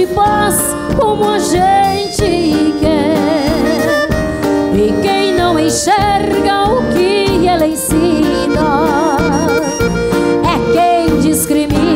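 Live gaúcho band music over a steady beat, played on accordion, acoustic guitar, electric bass and drum kit.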